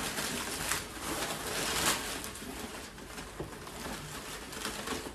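Crumpled packing paper rustling and crinkling as hands dig through it inside a cardboard box, in irregular bursts, loudest about two seconds in.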